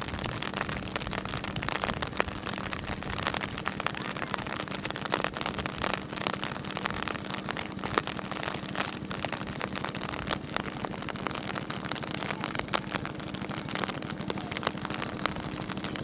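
Steady rain pattering, a dense crackle of many small drops, with a low steady hum underneath.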